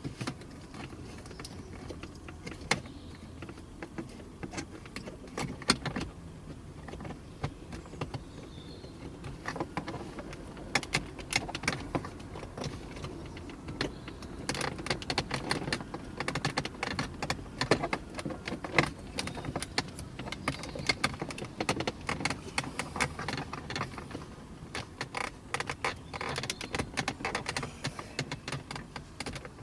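Wiring plugs being handled and pushed into the back of a car's headlight switch: irregular plastic clicks and rattles over the rustle of the wiring, busier about a third of the way in.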